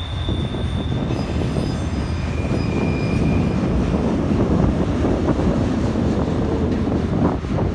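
Autorack freight cars rolling past close by: a steady rumble and clatter of steel wheels on the rails, with faint high-pitched wheel squeals in the first few seconds and a few sharp clanks near the end.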